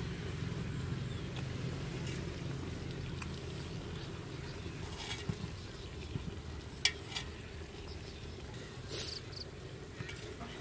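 Metal ladle scooping soup from a pot, giving several short clinks and knocks against the pot, the sharpest about seven seconds in, over a steady low rumble.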